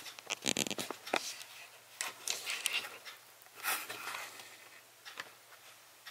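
Knife cutting into the crust of a freshly baked toast loaf on a wooden board: a quick rasping run of strokes about half a second in, then a few scattered scrapes and knocks.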